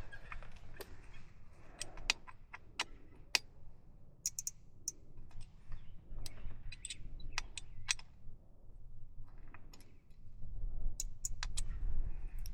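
Irregular sharp clicks and small metallic taps of hands working on a mountain bike's seat, setting right a saddle knocked askew in a crash. A steady low rumble runs underneath.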